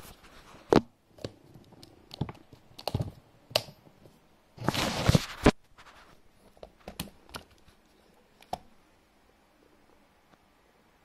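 Ihagee Exakta Varex IIa 35 mm SLR camera being worked by hand. Its shutter and film-advance mechanism give a string of sharp mechanical clicks and snaps. Near the middle there is a denser mechanical run lasting about a second that ends in a sharp click, and after it come a few lighter clicks.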